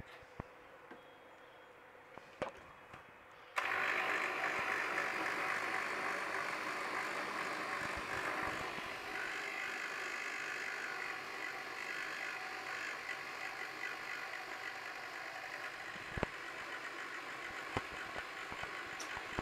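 Electric blender switched on about three and a half seconds in, after a couple of light clicks, then running steadily as it grinds spinach, green chillies, green garlic and coriander with a little water into a paste.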